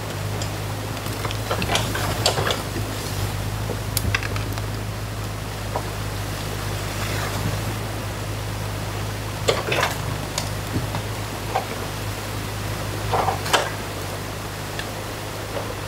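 Mini excavator's diesel engine running with a steady drone over the rush of water pouring through a breached beaver dam, with several sharp cracks and knocks as the bucket breaks up the packed sticks and branches.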